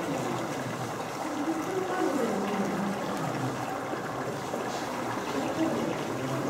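Indistinct chatter of several people's voices over a steady background hiss.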